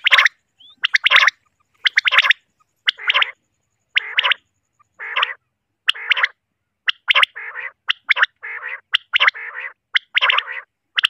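Recorded common quail (batair) calls repeating in short, loud notes, about one a second at first and then roughly two a second in the second half: a quail call recording of the kind played to lure quail for hunting or netting.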